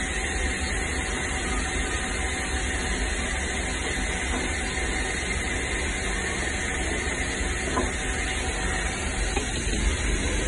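Steady machinery hum and hiss with a low rumble, like shop ventilation or a running compressor, holding even throughout.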